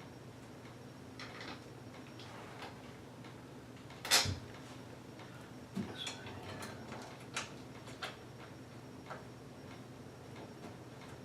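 Door bolts and hardware being handled and pushed into a rotomolded plastic dog kennel: scattered small clicks and light knocks, with one louder knock about four seconds in. A low steady hum runs underneath.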